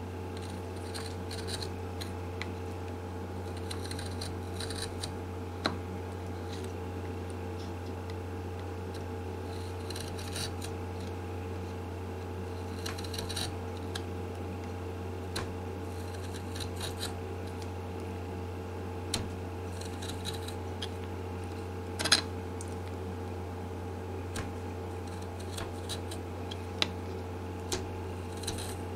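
A 1/4-inch chisel paring and scraping old glue and wood from a guitar's neck heel in short runs of strokes, with a few sharp clicks, the loudest about two-thirds of the way through: cleaning up the heel for a neck reset. A steady low hum runs underneath.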